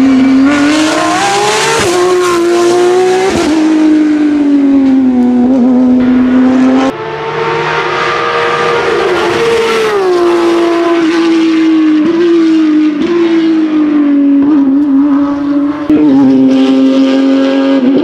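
Porsche 991.2 GT3 Cup's 4.0 L flat-six racing engine at full throttle on a hillclimb, its note repeatedly rising and dropping as the car accelerates and passes. The sound cuts abruptly to another stretch of the run about seven seconds in.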